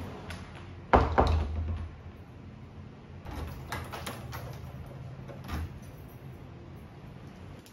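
Wooden door pulled shut with one loud thud about a second in, followed by a few light clicks and rattles of door hardware.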